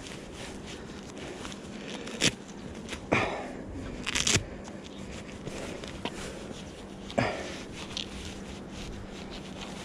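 Knee pads being pulled up over the knees: fabric rustling with a few short scrapes and rasps, the longest about four seconds in.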